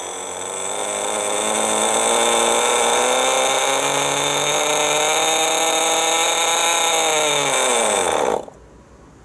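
Veco .21 two-stroke nitro engine of an RC buggy running with a high, steady buzz, climbing a little in pitch over the first couple of seconds. Near the end it sags sharply in pitch and dies abruptly: the engine has run out of fuel.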